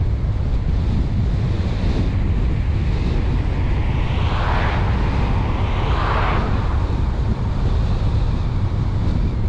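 A car driving along the road: steady wind buffeting on the car-mounted microphone over a deep road and tyre rumble. Two brief whooshes rise and fall about halfway through, a second and a half apart.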